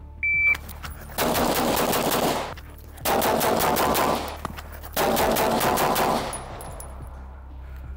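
A shot timer beeps once, briefly, then a semi-automatic pistol fires three fast strings of shots, each lasting about a second and a half, the shots running close together and ringing out after each string.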